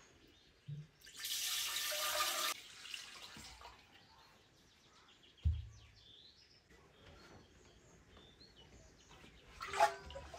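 Liquid poured into a clay churn jar for about a second and a half, then a single dull thump as the heavy jar is knocked or set down, with a sharper knock near the end. Birds chirp faintly in between.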